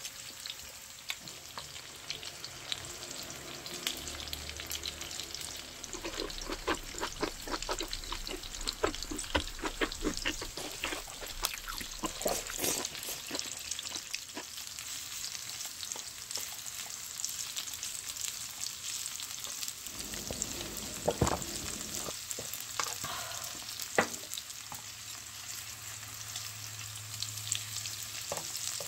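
Beef large intestine (daechang), mushrooms and onions sizzling steadily on a hot tabletop grill plate. Metal tongs click and scrape against the plate as the pieces are turned, in a quick run through the middle and a few times near the end.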